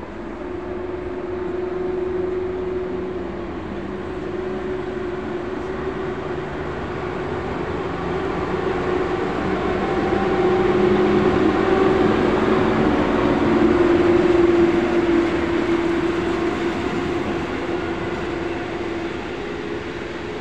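EP07 electric locomotive pulling a long passenger train away from a station, with a steady hum over the rumble of wheels on rails. It grows louder as the locomotive passes about halfway through, then eases off as the coaches roll by.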